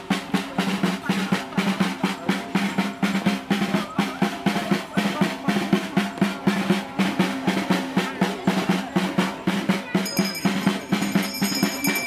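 Side drum beaten with sticks in a steady dance rhythm, several strokes a second, over a held low tone, accompanying a folk dance.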